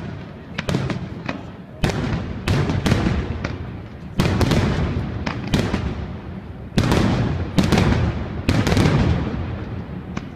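Fireworks display: aerial shells bursting one after another, about a dozen sharp bangs roughly a second apart, each trailing off in a rolling rumble.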